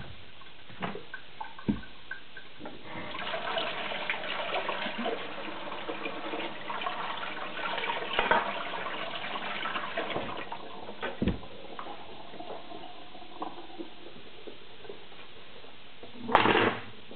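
Wet scraping of a knife on a Japanese natural water stone with slurry, a run of rasping strokes from about three to ten seconds in. A few sharp knocks come before and after, and a short loud burst comes near the end.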